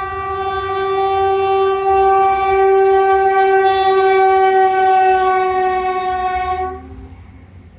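Indian Railways electric locomotive's horn sounding one long, steady, loud blast that cuts off about seven seconds in, over the low rumble of the passing train.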